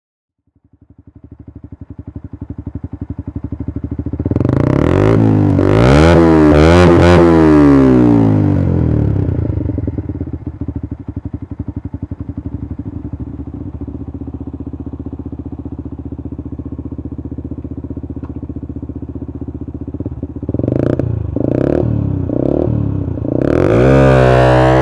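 Rieju RS3's 125cc Minarelli two-stroke engine breathing through an Ixil Extreme race exhaust. It idles, is revved up and back down once, settles to a steady pulsing idle, is blipped three times in quick succession, then revs up again near the end.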